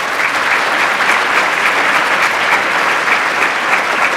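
Audience applause: many hands clapping in a steady, loud, dense clatter.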